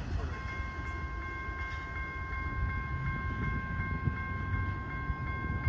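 Grade-crossing warning bell ringing a steady, high electronic chime with a light tick about four times a second while the crossing gate arms rise, which signals that the crossing is clearing after the train has passed. The bell starts just after the beginning and cuts off near the end as the gates come up.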